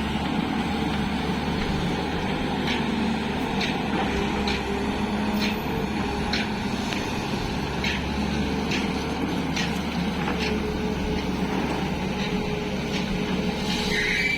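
Tata Hitachi EX215 hydraulic excavator's diesel engine running steadily under working load. A run of light clicks comes about once a second in the middle, and a short high-pitched squeal comes near the end.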